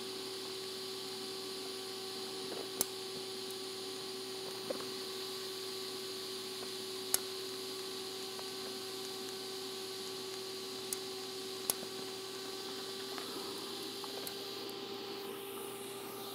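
DC TIG arc welding 304 stainless steel to titanium with 308L stainless filler rod: a steady hiss with a constant hum under it, broken by a few sharp clicks. The hiss drops away near the end.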